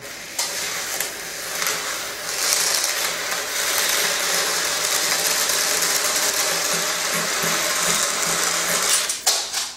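A long string of beads running across a tabletop and pouring off the edge, a continuous dense rattling clatter. A few last clatters come just before it stops suddenly at the end.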